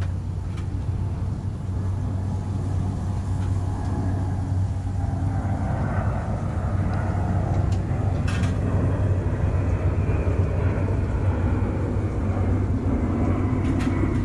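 Steady low outdoor rumble that grows slightly louder toward the end, with faint tones gliding up and down over the second half and a couple of faint clicks.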